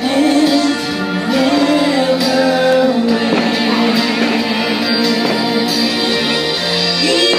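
Music: a slow Christian song, a voice singing long held notes over instrumental accompaniment.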